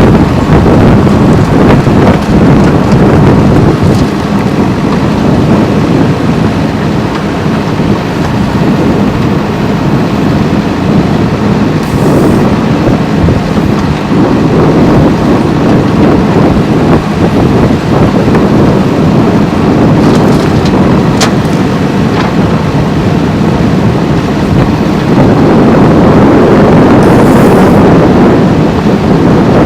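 JCB 3DX backhoe loader's diesel engine running under load. It is very loud and close, with a couple of sharp clicks, and grows louder about 25 seconds in.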